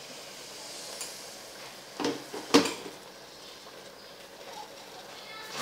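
Metal clinks of a utensil against a steel cooking pot, two close together about two seconds in and another near the end, over a steady faint sizzle of the curry paste and meat cooking in the pot.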